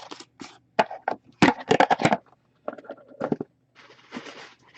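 Trading cards and their packaging being handled: a run of sharp clicks and snaps at irregular spacing, then a short rustle about four seconds in.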